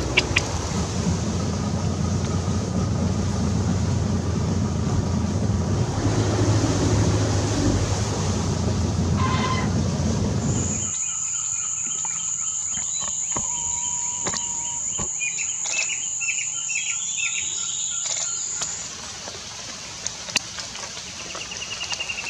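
Forest field recordings in two parts. First a loud steady rushing noise with a low rumble. Then, after an abrupt change, a high steady insect buzz with a few bird calls: a short held whistle, then a quick run of notes rising in pitch, and a sharp click near the end.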